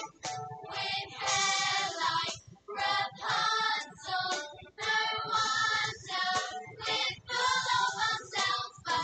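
A recorded choir song with young voices singing in short phrases over an instrumental backing.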